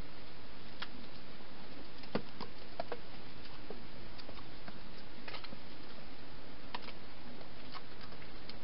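A hedgehog eating: scattered, irregular crunching clicks, a few a second, with a cluster about two to three seconds in and another about five seconds in, over a steady hiss.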